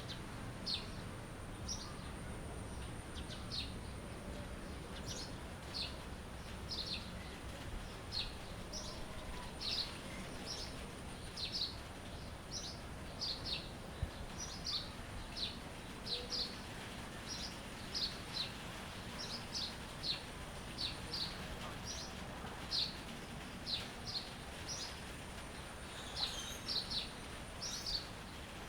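Songbird calling a long series of short, high, downward-sweeping chirps, one or two a second, over a steady low background rumble.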